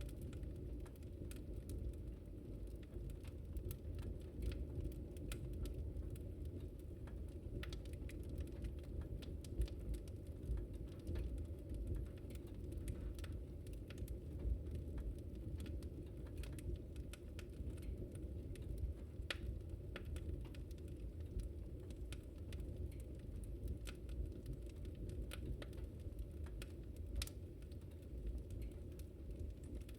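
Wood fire crackling: frequent small irregular pops and snaps over a low steady rumble of the burning fire.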